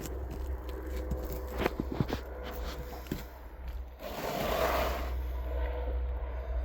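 Scraping and light knocking of an old asphalt shingle being worked loose and handled by hand, with a brief rush of noise about four seconds in.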